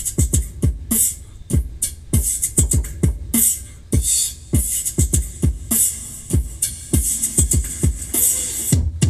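An instrumental beat with deep, punchy kick drums and crisp hi-hats, played from a phone through a large woofer driven by a TPA3118 mono amplifier board running on solar power alone.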